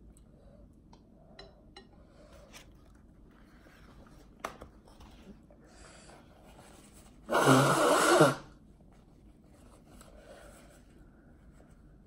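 A person blowing her nose into a tissue: one loud, noisy blow lasting about a second, a little past the middle. A few faint taps and rustles come before it.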